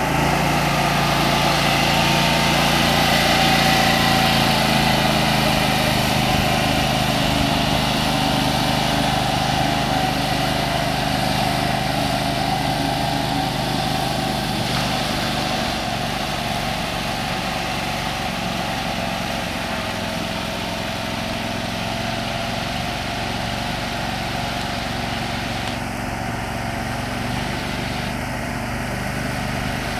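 Small engine of a Max six-wheel amphibious ATV running steadily as the vehicle drives through pond water, its wheels churning a wake. The engine sound eases off a little over the second half.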